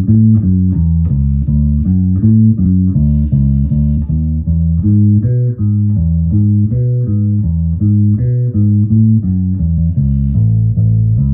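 Birdsong Hy5 bass strung with D'Addario Chromes flatwound strings, played through an amp with both pickups fully on and the tone control wide open. It plays a repeating riff of separate plucked low notes, about three or four a second.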